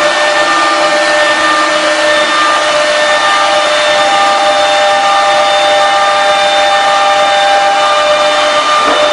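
Air-cooled spindle of a CNC router running at high speed while engraving MDF: a loud, steady whine with the rushing noise of the bit cutting the board. Several steady tones sit in the sound, and a new one comes in about four seconds in as the machine's motion changes.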